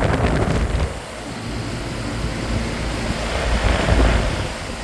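Bryant 561CP central air conditioner condensing units running: a steady rush of fan air with a low rumble, the air buffeting the microphone. The rumble drops about a second in and swells again near the end.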